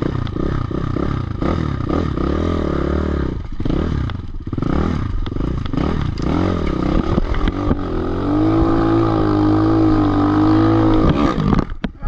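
Avantis 250 enduro motorcycle engine revving in uneven bursts, the pitch rising and falling with the throttle for most of the time. Near the end it is held at steady high revs for about three seconds, then cuts off suddenly.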